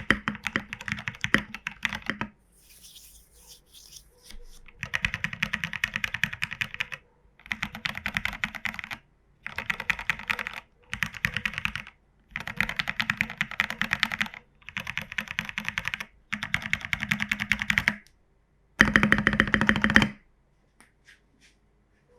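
A mechanical keyboard with lubed, filmed Cherry Hyperglide Black linear switches and MT3 keycaps in a Geonworks Frog WKL case, typed on fast. The keystrokes come in about eight runs separated by short pauses, with the last run the loudest, and stop near the end.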